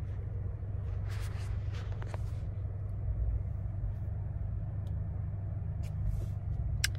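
Steady low rumble of a car heard from inside the cabin, with a few faint rustles and clicks.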